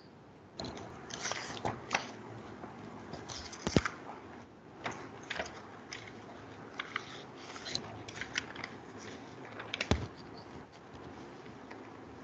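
Irregular small clicks and crackles, a few each second and unevenly spaced, with sharper clicks about four seconds in and again near ten seconds.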